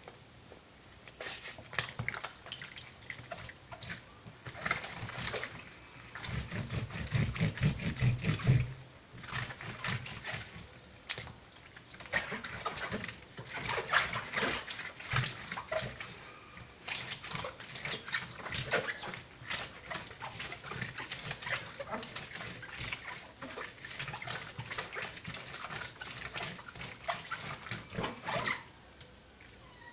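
Hands scrubbing and squeezing wet paper against the ridged washboard of a plastic laundry tub: irregular wet scraping and squishing as the soaked paper is broken into papier-mâché pulp. A louder, low rumbling stretch of about two seconds comes about a quarter of the way in, and the scrubbing stops just before the end.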